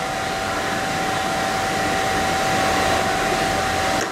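Steady whirring hum of running factory machinery, with one constant mid-pitched whine held throughout and a slight swell in level partway through.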